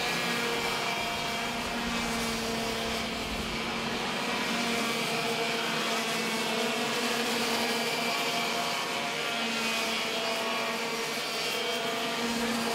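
Two-stroke racing kart engines running at high revs on track, a steady buzzing note that rises and falls slightly as the karts accelerate and lift through corners.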